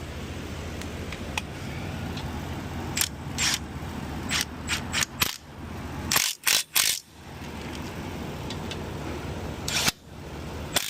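Pneumatic impact wrench fired in short bursts, several brief ones and then three longer, louder ones, running down bolts that were started by finger. A steady low shop hum runs underneath.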